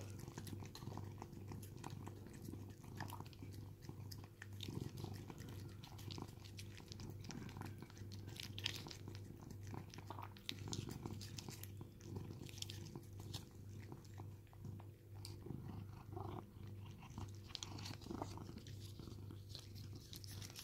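Cat licking paste from a squeeze tube: faint, irregular wet licks and mouth smacks over a steady low hum.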